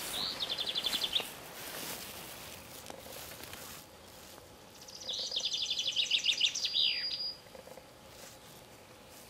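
A songbird singing two rapid, high trilled phrases. The first is short and comes right at the start. The second, about five seconds in, lasts around two seconds and ends in a falling note.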